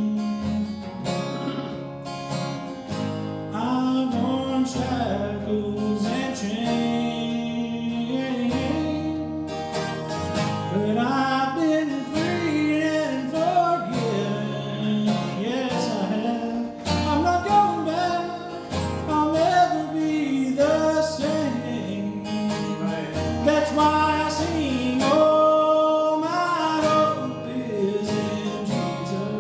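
A man singing a worship song while strumming an acoustic guitar, his voice through a microphone.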